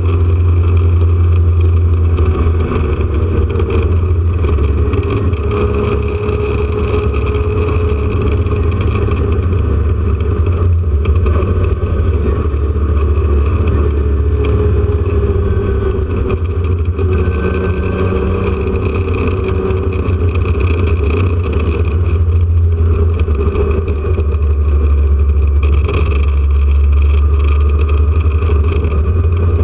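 Onboard sound of a 1979 Porsche 911 RSR's air-cooled flat-six running hard at racing speed, its pitch rising and falling through the gears over a heavy, steady low rumble.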